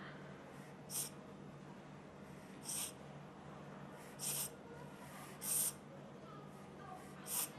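Five short hisses from an e-cigarette's clear atomizer as vapour is drawn through it, one puff about every second and a half.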